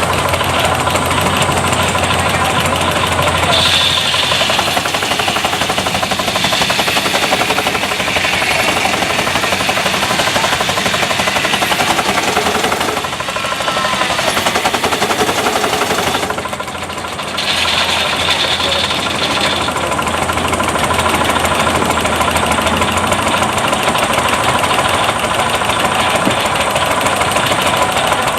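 Half-scale Case steam traction engine running steadily, belted to a sawmill, with a fast even beat. A higher-pitched sound comes up twice, about four seconds in and again around seventeen seconds, and the level dips briefly twice in between.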